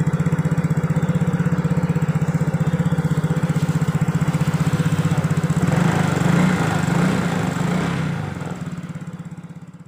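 Yamaha Mio J scooter's single-cylinder four-stroke engine idling with an even pulse, free of the clattering knock it had when its spark plug was loose. It gets a little louder about six seconds in, then fades away near the end.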